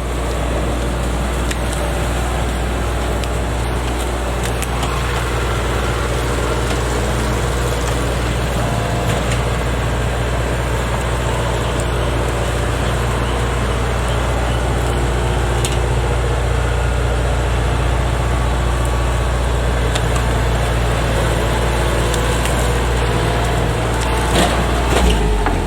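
Heavy engine running steadily at an even speed, a constant low drone with a dense mechanical rumble over it.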